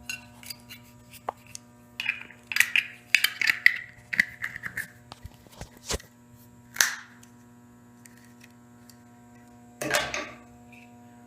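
Metallic clicks and short scrapes from a battered Zippo lighter and its insert being handled, with a quick run of them about two to five seconds in and single scrapes near seven and ten seconds. A steady electrical hum runs underneath.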